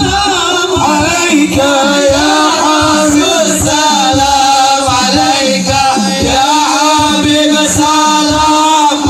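Sholawat, Islamic devotional songs in praise of the Prophet, sung by a male voice over a steady drumbeat.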